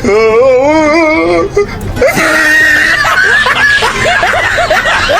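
A wavering, wailing voice for about a second and a half, then music with chatter and laughter over it.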